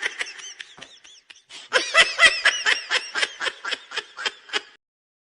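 A person laughing in quick rhythmic ha-ha bursts, about four a second, as a comic sound effect. A short laugh trails off in the first second or so, then a fresh run of laughter lasts about three seconds and stops abruptly.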